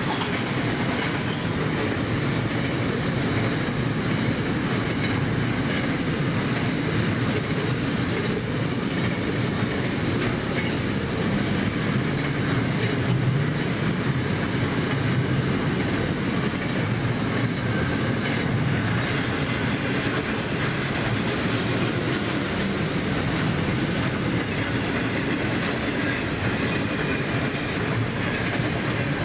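Container wagons of a long freight train rolling past at speed: a steady noise of steel wheels running over the rails, with no change in level.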